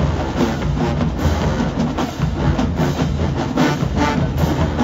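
HBCU show-style marching band playing loudly: sousaphones, saxophones and other brass over a marching drumline with bass drums.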